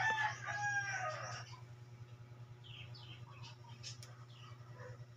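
A rooster crowing: a long call that ends about a second and a half in. A few short bird chirps follow, over a steady low hum.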